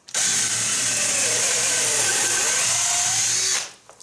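AEG BS14 G3 Li 14-volt cordless drill-driver on its high-speed gear (1,700 rpm), boring a 10 mm bit into a wooden beam: a steady, loud motor whine with a lower tone that wavers as the bit cuts. It starts abruptly and stops about three and a half seconds in.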